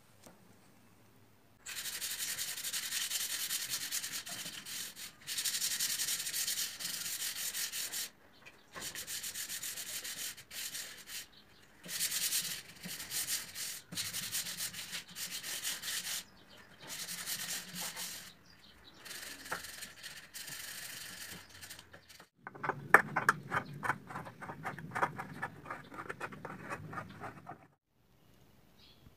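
Sanding Australian oak: a high, dry hiss in stretches of a few seconds broken by short pauses. Near the end, a lower, rapidly repeating scraping for about five seconds.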